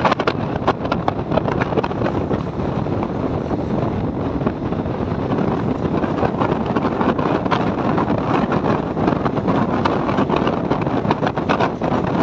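Passenger train running at speed, a steady rumble of the coaches on the track broken by many quick clicks and knocks, with wind buffeting the microphone.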